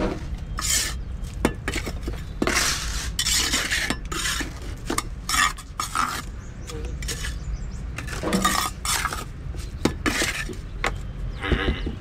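Steel trowel scraping and scooping wet concrete mix, with irregular scrapes and sharp clinks of metal against the block mould.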